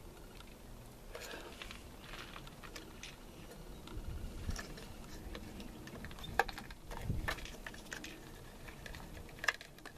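Handling noise from plastic valve parts: scattered small clicks and rustles, with a few sharper clicks and some low rumbles.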